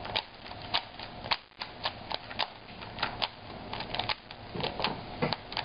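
Rubik's Cube being turned quickly by hand: its plastic layers click round in a rapid, irregular run, about three clicks a second.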